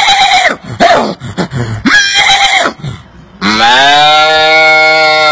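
A man imitating farm-animal calls with his mouth: three short calls, then one long, steady call that drops in pitch as it ends.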